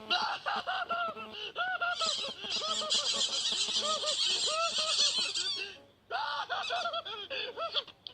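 A flock of birds calling together: many short, arched, honk-like calls over dense high chatter, breaking off briefly about six seconds in and then resuming.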